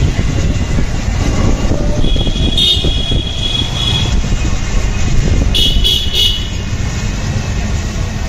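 Night street traffic heard while moving through town, a steady low rumble of engines and road noise. High-pitched vehicle horns sound about two seconds in, and again as a quick run of toots near six seconds.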